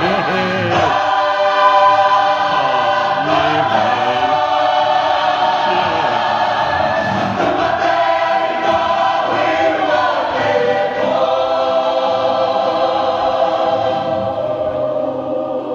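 A kapa haka group of many men's and women's voices singing together in full voice, a sustained Māori waiata-style chorus.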